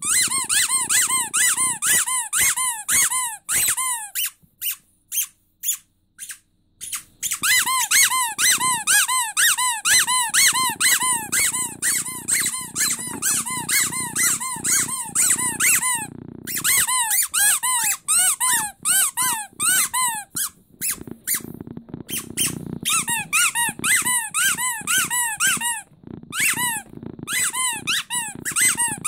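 Rubber starfish squeaky toy squeezed by hand over and over, giving quick squeaks at about four a second, each rising then falling in pitch. The squeaking stops for about three seconds near the start, then carries on with a few short breaks.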